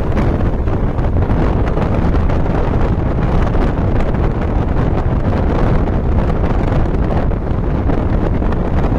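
Steady wind buffeting the microphone at the window of a moving bus, over the low noise of the bus's engine and tyres on the road.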